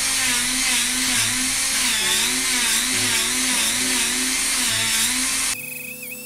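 Dremel rotary tool with a sanding drum running at high speed and sanding a small piece of ash wood, its pitch wavering as the load changes; it cuts off abruptly about five and a half seconds in.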